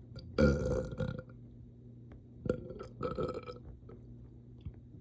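A person burping: one long, loud burp about half a second in, then two shorter burps a couple of seconds later.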